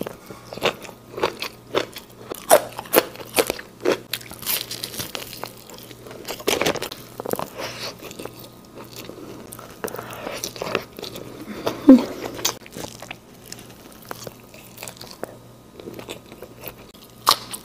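Close-miked eating: a person biting and chewing crunchy food, with irregular crisp crunches, the loudest about twelve seconds in. A faint steady low hum sits underneath.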